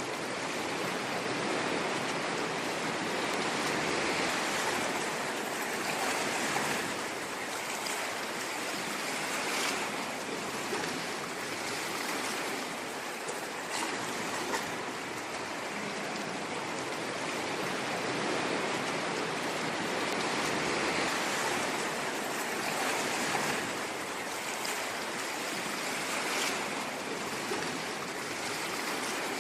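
Sea waves washing on a shore, a continuous hiss of surf that swells and eases every few seconds.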